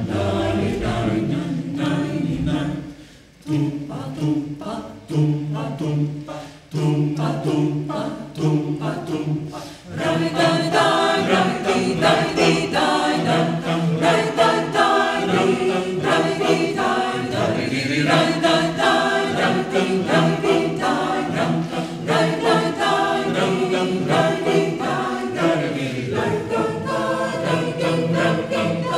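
Mixed choir of women's and men's voices singing a cappella. Phrases break with short pauses in the first ten seconds, then the singing runs on fuller and louder.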